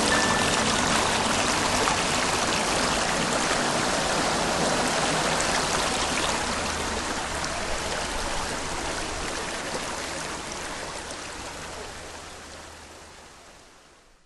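Stream water rushing steadily, fading out slowly over the last several seconds to silence.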